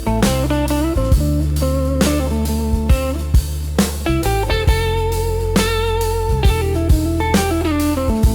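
Instrumental passage of a slow dark blues track: electric guitar playing bent, vibrato-laden lead notes over bass and a steady drum-kit beat.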